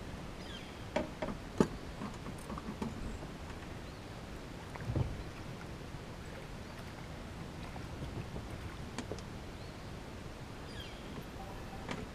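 Small fishing boat with a steady low hum under it, and a scatter of sharp knocks and clicks of gear against the boat, the loudest a single sharp knock about a second and a half in, then a heavier low thump about five seconds in, while a crappie is reeled in.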